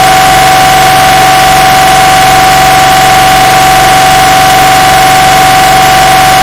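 MRI scanner's gradient coils sounding a loud, unchanging buzz at one pitch over a steady hiss, amplified until it clips and distorts.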